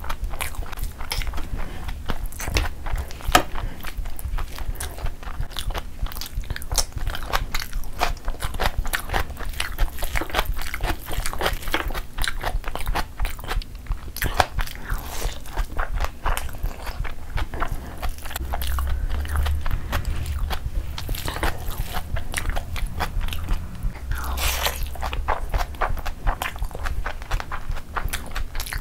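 Close-miked chewing of a mouthful of chicken mandi biryani eaten by hand: a dense, irregular run of short mouth clicks and smacks.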